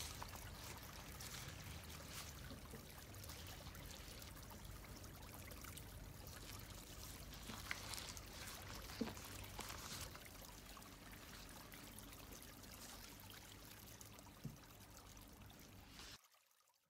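Faint running water, a steady trickle with a few soft clicks, cutting off suddenly near the end.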